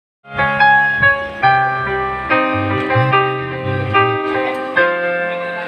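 Electronic keyboard playing a run of sustained chords over a bass line, with about seven chord changes.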